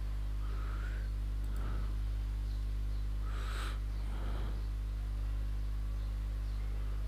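Steady low electrical hum, a low tone with a ladder of overtones, on a desktop recording microphone, with a few faint, soft short noises over it.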